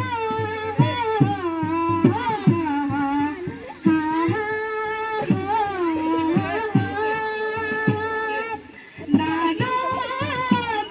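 Young girls singing a Garhwali folk song, with a drum beating under the melody. The music drops out briefly near the end, then the singing and drumming resume.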